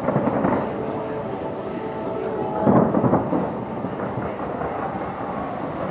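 Fireworks booming and rumbling from across the water, with a heavy volley right at the start and a louder one about three seconds in.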